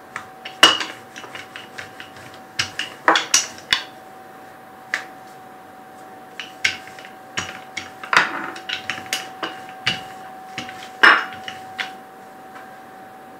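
Wooden rolling pin rolling out dough on a stone countertop, knocking and clacking against the counter at irregular intervals, a few sharp knocks louder than the rest. A faint steady hum runs underneath.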